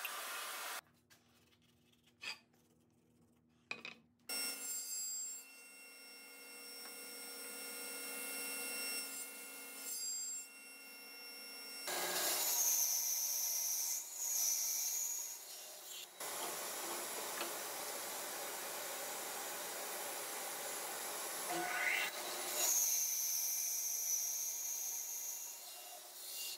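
A bandsaw running and cutting through a thick glued-up hardwood block, the blade's steady whine joined by a louder rasp while it is in the wood. The sound breaks off and changes abruptly several times, with a quieter stretch in the first few seconds.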